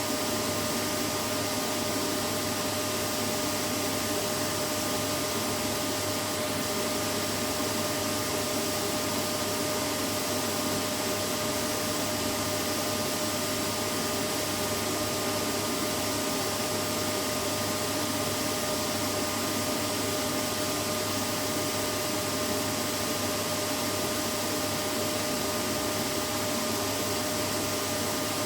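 Vacuum cleaner running steadily: a constant rushing noise with an unchanging motor hum.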